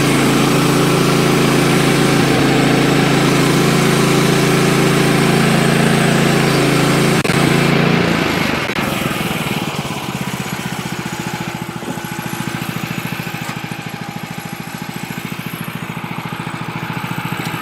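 The gas engine of a Woodland Mills HM130MAX bandsaw sawmill runs at high throttle as the band blade cuts along a small log. About eight seconds in, as the blade clears the end of the log, it drops to a quieter, steady lower running speed.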